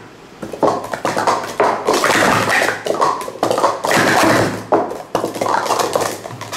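Speed Stacks plastic sport-stacking cups being stacked and unstacked at speed on a stacking mat: a rapid, uneven run of light plastic clacks and taps in quick flurries.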